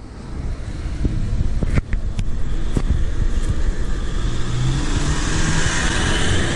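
A pickup truck drives past close by, its engine hum and tyre noise building over the last few seconds as it nears. A few sharp clicks come about two seconds in.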